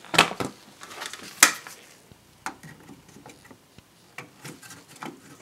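A few sharp plastic clicks and lighter ticks as a DDR3 memory module is pushed into a desktop motherboard's memory slot and its retention clips snap shut. The loudest click comes about a second and a half in.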